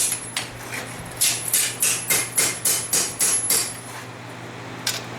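Hand hammer striking hot steel on an anvil while forging a knife handle from a farrier rasp: a quick, even run of ringing blows, about four or five a second, that stops about three and a half seconds in, then a single blow near the end. A steady low hum runs underneath.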